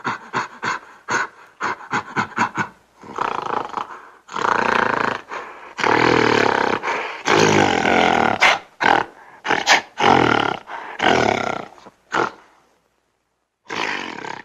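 Angry gorilla roaring and grunting: a quick run of short grunts, then several long, loud roars and shorter bursts, a pause, and one last short roar near the end.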